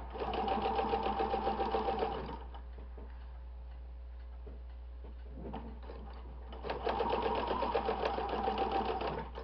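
Domestic sewing machine stitching in two short runs of about two seconds each, a fast, even needle rattle, stopping for about four seconds between them while the fabric is pleated.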